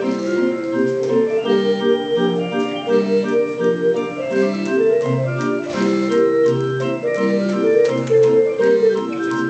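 Barrel organ playing a tune: a melody over a regular rhythm of bass notes and chords.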